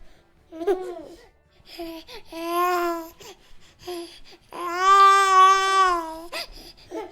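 Baby cooing and babbling: a few short vocal sounds, then two drawn-out vowel sounds. The second of these, about five seconds in, is longer and the loudest.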